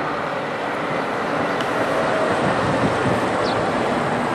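Diesel locomotive with an EMD engine running as it approaches, a steady rumble that grows slightly louder.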